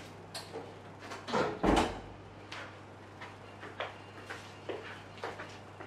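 Hotel room door swinging shut about a second and a half in with a dull double thud, followed by scattered light clicks and rustles, over a low steady hum.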